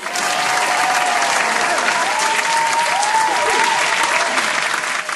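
Audience applauding: a dense crowd clapping that starts suddenly and holds steady, with a few voices calling out over it.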